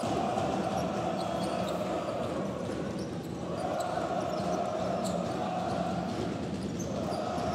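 Basketball being dribbled on the court during live play, over the steady background noise of the sports hall.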